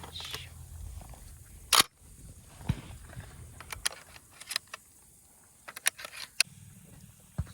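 Benelli Super Black Eagle 12-gauge shotgun being loaded: sharp mechanical clicks and clacks of shells and action. One loud clack comes about two seconds in, then a run of lighter clicks.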